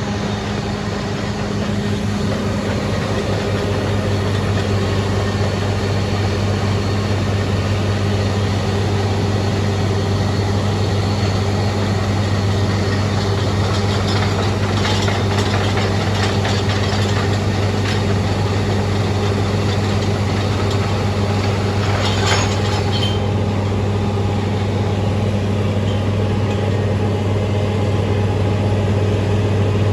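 An engine running steadily at a constant speed, a low even hum that does not change in pitch. Brief clattering comes through about halfway through.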